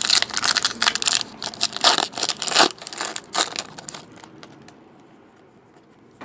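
Trading card pack wrapper crinkling and tearing in the hands, a dense run of crackles for about four seconds that then dies away.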